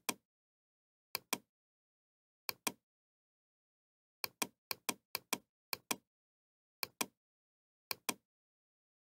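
Computer mouse button clicks, about nine in all, each a quick press-and-release double tick. They come irregularly, with a faster run of four about halfway through.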